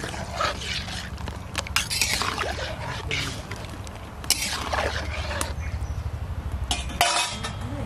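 Metal spatula stirring taro cubes through water in an iron wok, scraping and clinking against the pan with splashing, over a steady low rumble.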